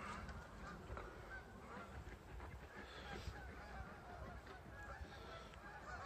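Faint honking of geese, a few short scattered calls over a low background rumble.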